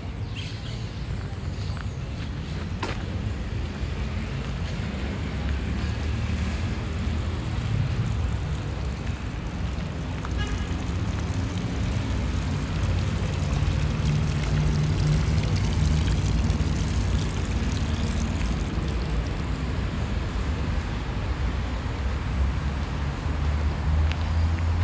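City street traffic: the engines of passing vehicles make a steady low rumble that grows louder through the second half.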